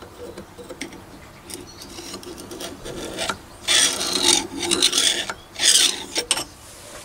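Brass fire-piston tube slid back and forth by hand over the turned steel piston rod held in the lathe chuck: metal scraping and rubbing on metal while the close sliding fit is checked. The strokes grow louder, with the loudest about four and six seconds in, and a few light clicks between them.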